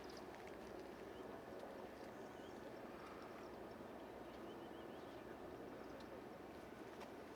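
Quiet outdoor background noise, steady and low, with faint small bird chirps a few times.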